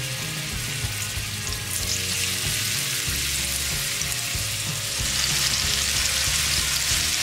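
Marinated boneless chicken pieces sizzling in hot oil in a frying pan as they are laid in one by one; the sizzle grows louder about two seconds in and again near the end as more pieces go in.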